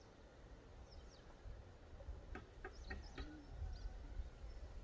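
Faint outdoor ambience: a few high bird chirps and a short run of sharper calls about two to three seconds in, over a low rumble that swells in the middle.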